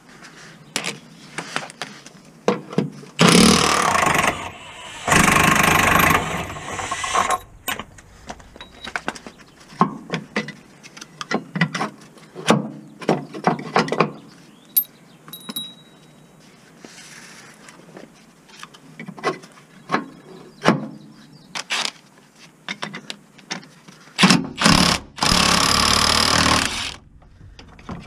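Cordless impact wrench hammering on a bolt in three bursts: about a second long three seconds in, about two seconds long soon after, and about three seconds long near the end. In between come scattered clinks and knocks of tools and metal parts.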